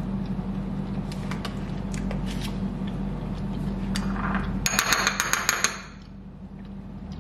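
A rapid bell-like ringing, a quick run of evenly spaced high strokes lasting about a second, near the middle, over a steady low hum.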